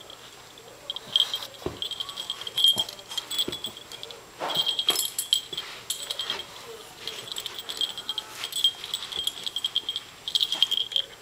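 Metal tags on a small dog's collar jingling in quick clusters as it shakes and wriggles with its head stuck inside a T-shirt, with fabric rustling and scuffing against carpet between the jingles.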